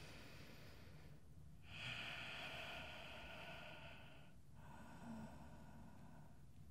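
A man's slow, deep breaths picked up close, faint and airy: a long breath of about two and a half seconds starting near two seconds in, then a quieter one.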